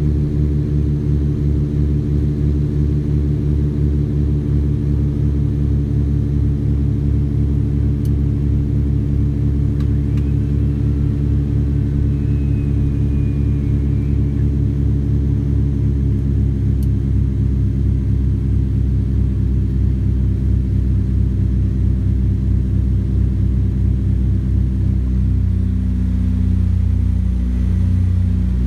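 Cabin drone of a Britten-Norman Islander's twin piston engines and propellers in flight, a steady low hum with a rhythmic beating; the pitch shifts and the sound grows a little louder about 25 seconds in.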